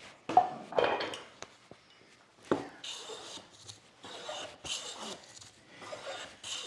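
A few sharp knocks of wood on a wooden workbench, then a hand plane taking quick strokes along a board, each stroke a short hiss of a shaving being cut, about one a second, smoothing off the mill marks.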